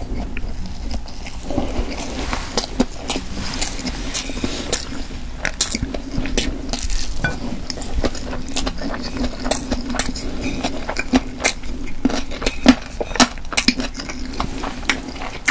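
Close-miked eating sounds from a meal of stir-fried pork cartilage and rice balls: a rapid, irregular run of sharp clicks and clinks from utensils on the dish and crunching of the cartilage, denser in the second half.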